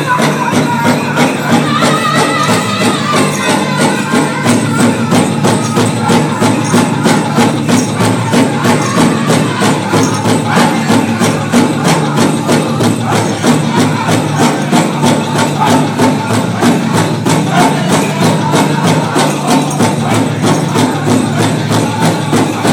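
Powwow drum group singing a men's chicken dance song: several drummers strike one large bass drum in a steady beat while men's voices sing high over it.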